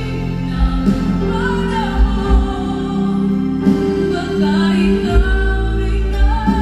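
Live band music from a concert stage: a singer's voice carrying a slow ballad melody over acoustic guitar, bass and drums, heard through the hall's sound system.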